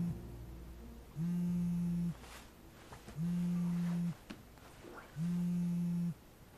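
Mobile phone vibrating with an incoming call: a low, steady buzz in pulses about a second long, repeating every two seconds, the last moment of one pulse at the very start, then three full pulses.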